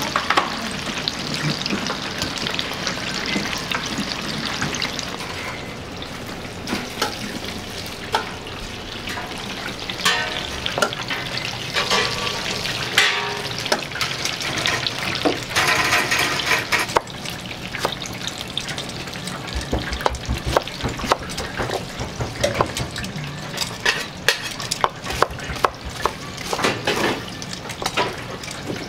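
Oil sizzling steadily as battered meat deep-fries in a commercial fryer, with scattered sharp clicks and knocks of metal tongs and a knife on a cutting board, more frequent in the second half.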